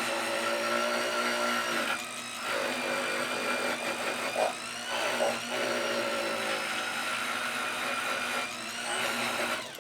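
Power-driven wire brush spinning against the steel pliers to scrub off rust and flaking plating; the motor's whine wavers in pitch and dips briefly a couple of times under load, then stops just before the end.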